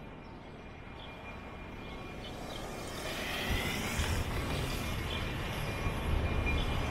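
Metra commuter train's rumble and rail noise, growing louder from about three seconds in as the train approaches.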